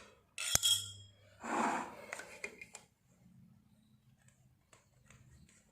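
Small metal sewing-machine parts being handled and set down on a hard surface: a sharp metallic clink with a brief ring about half a second in, a short rustle, then a few light taps and clicks.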